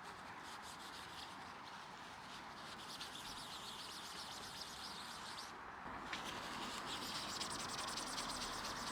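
Outdoor ambience: a steady hiss with rapid, high-pitched chirring that comes in two stretches and is louder in the second half.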